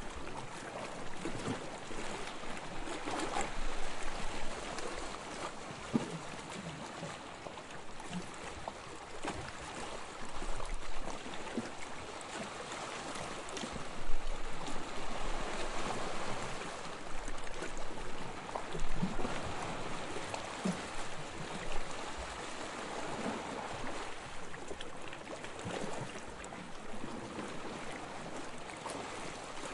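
Sea water lapping and sloshing steadily, with many small irregular splashes.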